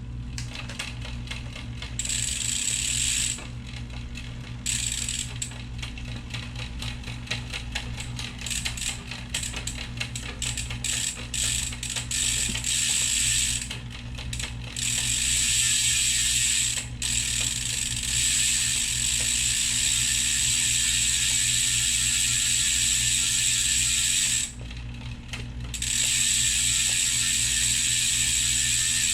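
Bicycle rear freewheel hub ratchet ticking rapidly as the wheel is spun, in short runs that stop and start, then in long steady spins.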